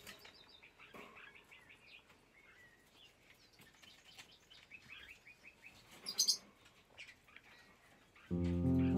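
Barred parakeet chirping softly in a string of quick short chirps, with one sharper, higher call about six seconds in. Music starts near the end.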